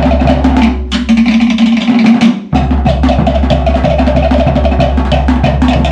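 Polynesian drum ensemble playing a fast, dense rhythm: rapid strikes on wooden slit drums over a deep, booming skin drum. The deep drum drops out about a second in and comes back at about two and a half seconds.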